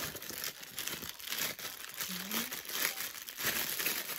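Packaging crinkling and rustling as it is handled and unwrapped, an irregular run of crackles throughout.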